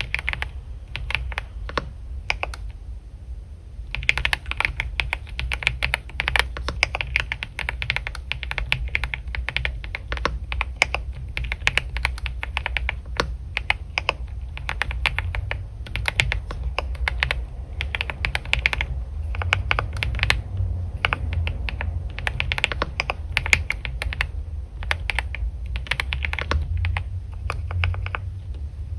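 Typing on a computer keyboard: a few keystrokes, a pause of about a second and a half, then fast, continuous typing in runs with short breaks, over a low steady hum.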